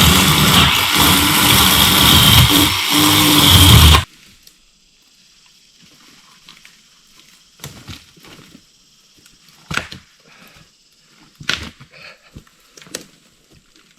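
Chainsaw running at high revs while cutting brush, stopping abruptly about four seconds in. Then quiet, with scattered rustles and a few sharp knocks.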